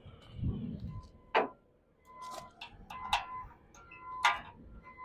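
Steel trailer hardware being handled: a handful of sharp metal-on-metal clinks and clanks, each with a short ringing tone, the strongest about a second and a half in and again near the end.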